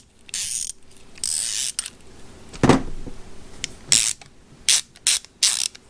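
Husky ratcheting screwdriver's ratchet mechanism being worked by hand, giving several short bursts of fast, fine clicking, with one knock near the middle.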